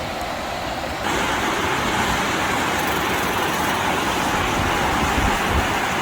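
Steady rush of fast-flowing river water, which jumps louder about a second in and then holds steady.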